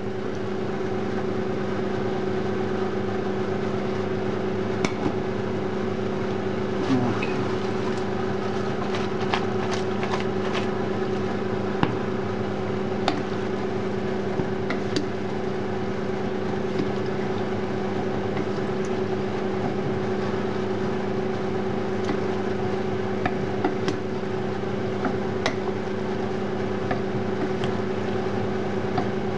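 Wooden spoon stirring bow-tie pasta and sauce in a pan, with scattered knocks and scrapes of the spoon against the pan, over a steady two-tone hum from a kitchen appliance.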